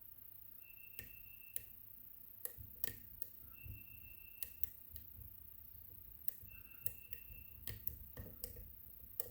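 Faint, irregular clicks and ticks of a lock pick and tension tool working the sliders of an Ikon WSW slider lock, with a thin high squeak heard three times, each about a second long.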